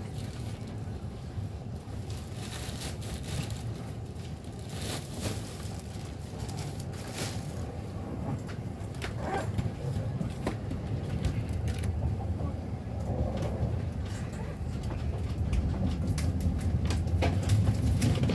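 Cabin sound of an InterCity train running on the rails: a steady low rumble with scattered clicks and knocks from the wheels over rail joints and switches. It grows louder in the last few seconds.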